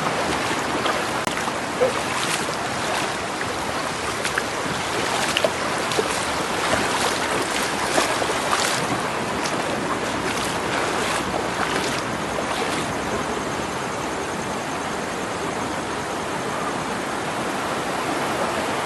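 Steady rushing of river water, with scattered short clicks and knocks.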